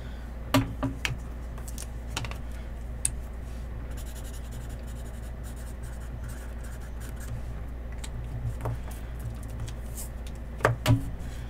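Sharpie marker scratching across paper as something is written by hand, over a steady low hum. A few light clicks and taps come from handling things on the table, the sharpest two near the end.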